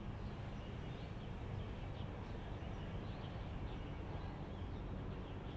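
Faint, scattered short bird chirps over a steady low background rumble of outdoor ambience.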